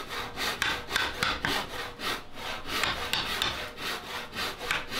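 A hand tool working wood in quick back-and-forth strokes, about four a second, with a dry scraping sound.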